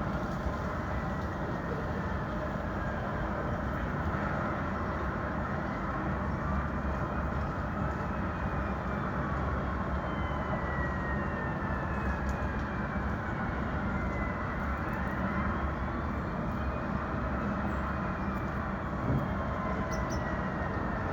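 New York City street ambience: a steady, dense wash of traffic noise, with faint high tones gliding slowly up and down over it and a brief sharp knock near the end.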